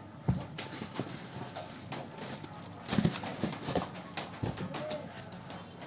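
A pair of rubber-soled running shoes being handled: soft irregular knocks and thumps as the shoes are turned over, set down and bumped together, with light rustling. The loudest knocks come about three seconds in.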